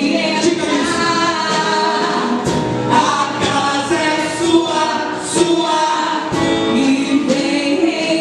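A worship song: voices singing a sustained melody together over instrumental accompaniment.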